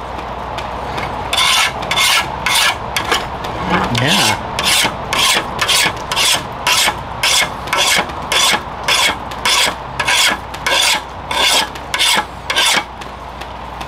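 A steel file rasped back and forth across a freshly quenched leaf-spring knife blade in a file hardness test, about two strokes a second, starting about a second in and stopping near the end. The strokes sound glassy, the sign in a file test that the steel has hardened.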